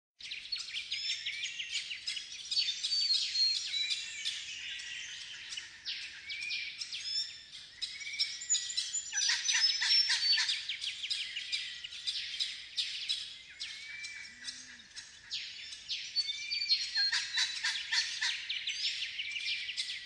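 Dawn chorus of wild Australian birds: many overlapping chirps, trills and short whistled calls, dense and continuous, with louder calls sweeping downward near the middle and again near the end.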